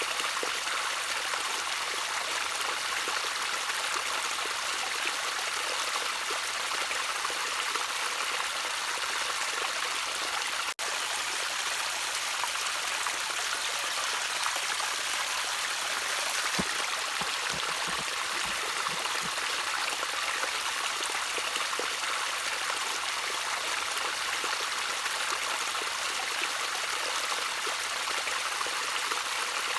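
Shallow stream of water trickling steadily, an even hiss with a few low gurgles just past halfway. The sound cuts out for a split second about a third of the way in.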